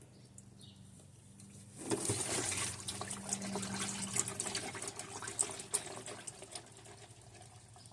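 Old engine oil pouring out and splattering, starting suddenly about two seconds in and tapering toward a dribble near the end.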